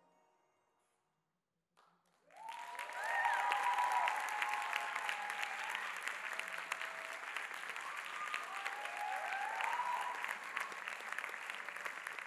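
The last notes of the dance music fade out, and about two seconds in an audience breaks into sustained applause, with a few cheering voices calling out over the clapping.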